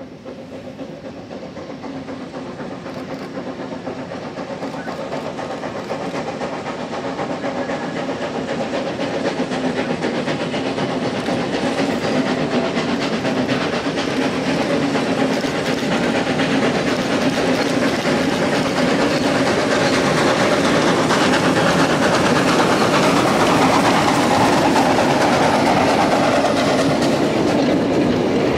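Narrow-gauge steam-hauled freight train approaching along the track, growing steadily louder throughout, with wheels clacking over the rail joints as it comes close.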